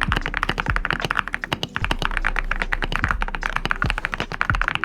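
Sound test of an Attack Shark X66 mechanical keyboard fitted with Amerteer retro keycaps: fast typing, a dense and steady run of key clacks.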